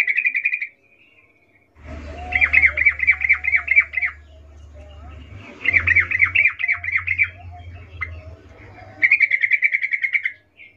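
Yellow-vented bulbul (trucukan) giving four short bursts of rapid chattering notes, a couple of seconds apart. It is the female's in-heat call, used to lure and rouse males.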